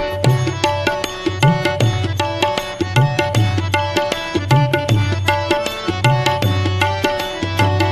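Instrumental interlude of a Hindi devotional song (bhajan), with no singing: a steady drum rhythm with deep bass strokes under a melody line.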